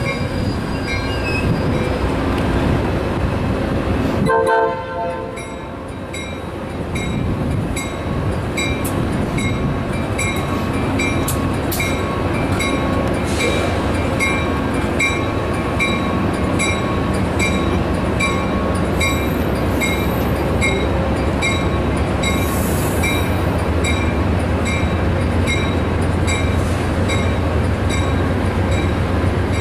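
Amtrak California bilevel passenger train rolling slowly through a station, a steady rumble of wheels and diesel that grows toward the end. A bell rings steadily at about two strokes a second, with a brief horn note about four seconds in.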